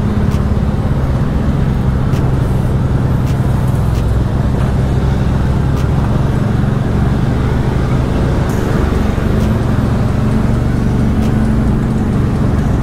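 Motorcycle engine running steadily at low speed in slow city traffic, with the rumble of the surrounding traffic and the truck just ahead.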